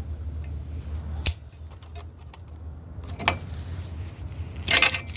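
Metal clinks of drum brake hardware and locking pliers being handled over a low steady hum: a sharp click about a second in, another around three seconds in, and a quick cluster of louder clinks near the end.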